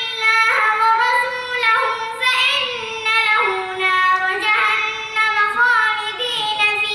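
A young boy chanting Quran recitation in a high voice, drawing out long melodic notes with ornamented turns and brief breaks between phrases.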